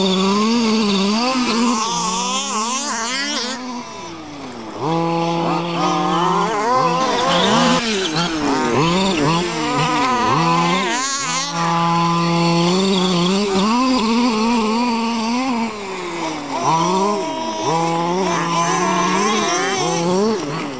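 Small two-stroke petrol engine of a 1/5-scale RC off-road car being driven hard: it holds a high, steady pitch at full throttle, then drops off and revs back up again and again.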